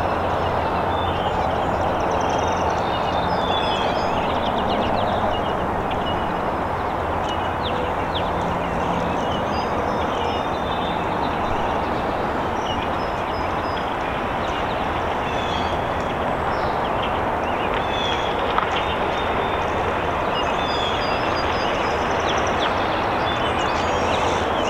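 Distant CN diesel freight locomotive and its train of tank cars running steadily down the main line, a constant rumble with a low engine hum underneath.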